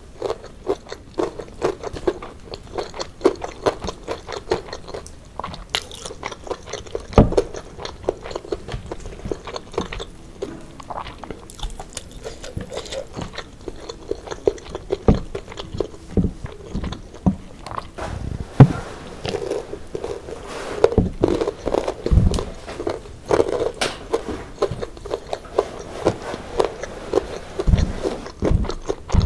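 Close-up eating sounds: chewing and crunching of fried chicken and rice, with irregular wet smacks and clicks and fingers tearing the chicken apart. A few louder dull knocks come through now and then.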